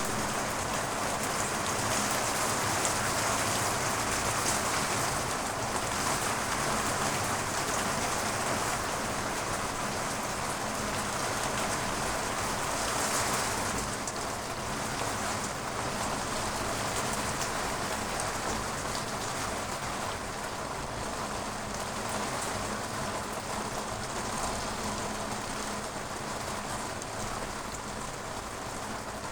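Steady rain falling on surfaces, a continuous even hiss, easing slightly after about the middle.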